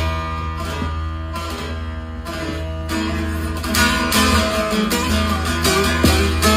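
Divan bağlama with a carved mulberry bowl being picked with a plectrum: a plucked melody over ringing strings, growing denser and louder about halfway through.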